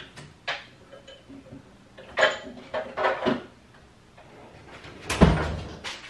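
Irregular clicks and knocks of hand tools being picked up and handled on a workbench, with a louder dull thump about five seconds in.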